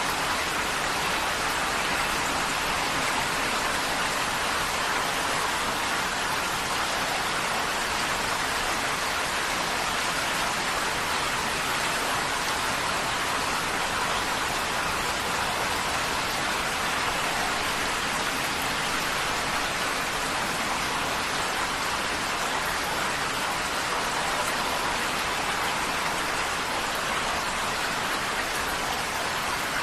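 Heavy rain falling on a tin roof, a dense, even wash of drops that stays steady throughout.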